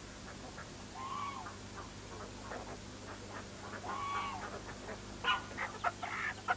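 Domestic fowl calling: two short calls that rise and fall in pitch, about three seconds apart, then a quick run of clucks near the end.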